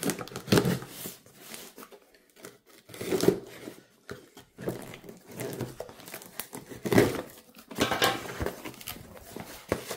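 Folding knife slicing and tearing packing tape on a cardboard box, then the cardboard flaps being pulled open: a run of irregular rips, scrapes and crinkles with short pauses between them.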